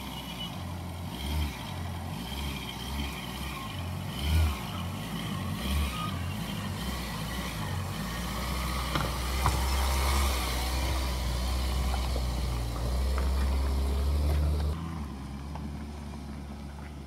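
A Ford Ranger pickup with a camper cabin driving slowly past on a loose stone track: its engine runs at low revs and its tyres crunch over the gravel. The rumble swells as the truck comes alongside, then eases off as it pulls away.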